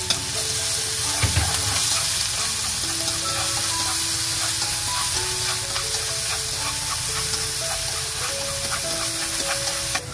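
Minced shallots and garlic sizzling steadily in hot oil in a nonstick wok, stirred with wooden chopsticks that tick against the pan now and then.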